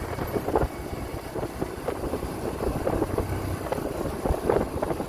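Vehicle on the move, its engine and road noise running steadily with some wind on the microphone.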